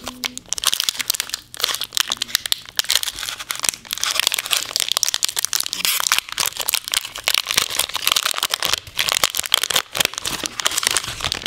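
Foil Pokémon trading-card booster pack (Sun & Moon Celestial Storm) crinkling and tearing as it is opened by hand: a dense, unbroken crackle.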